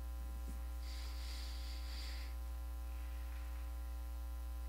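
Steady electrical mains hum with faint steady overtones, with a soft hiss of about a second near the start.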